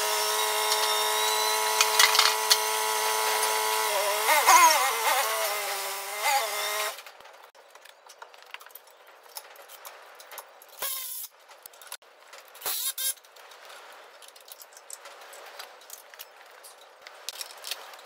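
A steady electric motor whine with a couple of brief wobbles cuts off abruptly about seven seconds in. Scattered clanks and knocks of steel plate being handled on the drill table follow.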